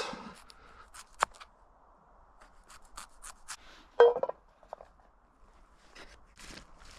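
Knife cutting raw potatoes: a scattered series of short cuts and scrapes, with one louder knock about four seconds in.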